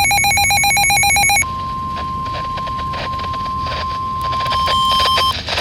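A weather radio's electronic alarm beeping rapidly for about the first second and a half, then the steady 1050 Hz NOAA Weather Radio warning tone over crackling radio static. The warning tone signals that a severe weather alert is about to be read, and it cuts off shortly before the end.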